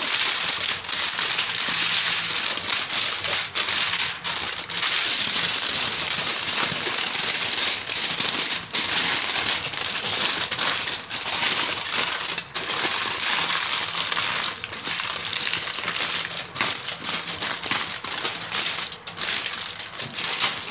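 Aluminium foil crinkling and crackling as hands fold and press it down, wrapping a parcel in several layers. The crackling is continuous and loud, with frequent sharp crackles.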